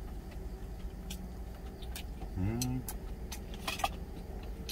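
Steady hum of the idling truck engine heard inside the cab, with a few light clicks of chopsticks against a stainless steel bowl as he eats. A brief hummed 'mm' comes about two and a half seconds in.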